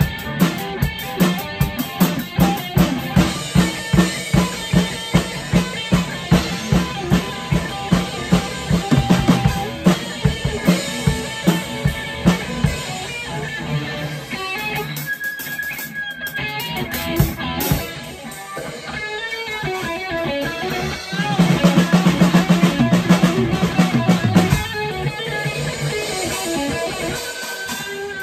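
Amplified guitar and a drum kit played live together. The drums keep a steady beat of about two hits a second, the playing drops to a quieter passage about halfway through, then swells into a loud, busy stretch before settling again.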